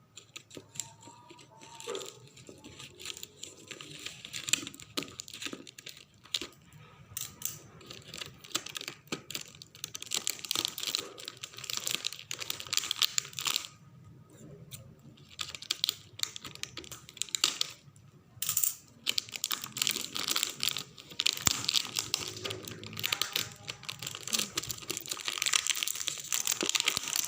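Sealed packaging being opened by hand: plastic seal wrap torn and crinkled, with many small clicks and rustles, getting busier in the second half.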